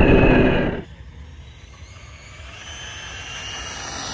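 Onboard sound of a Team Corally Kronos XP 6S brushless RC monster truck running fast over grass, a loud rumble of motor and tyres that cuts off sharply under a second in. It is followed by the truck's high motor whine heard from the roadside, faint at first and slowly growing louder as it approaches.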